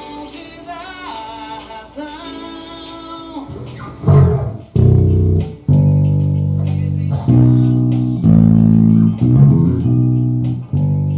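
A song with a sung melody, then about four seconds in a Tagima TJB-5 five-string electric bass comes in loud, playing held low notes that change every second or so.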